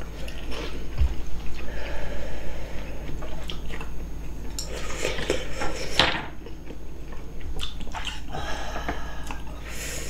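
Spoons and chopsticks clicking against ceramic bowls, mixed with wet eating sounds as hot nurungji (scorched-rice porridge) is eaten.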